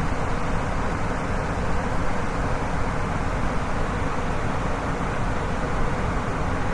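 Waterfall: a steady, loud rush of falling water, heaviest in the low and middle range, with no break or change.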